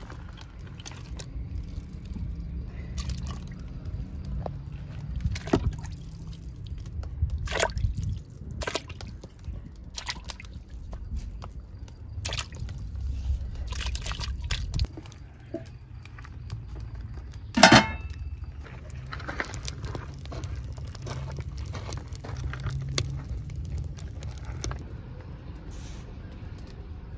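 Raw beef chunks being handled in a metal colander and dropped into a pot of water: wet splashes, drips and scattered clicks of meat and metal, with one sharp knock about two-thirds of the way through standing out as the loudest sound. A low rumble runs underneath.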